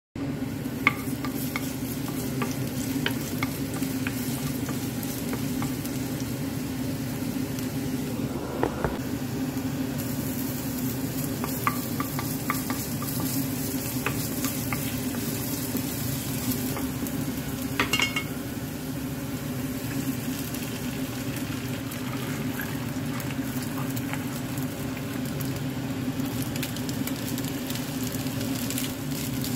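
Food sizzling in oil in a nonstick frying pan, garlic and then rice and egg being stir-fried. A wooden spatula scrapes and knocks against the pan now and then, over a steady low hum.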